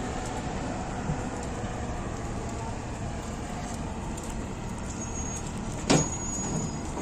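Steady low engine drone, with one sharp knock about six seconds in.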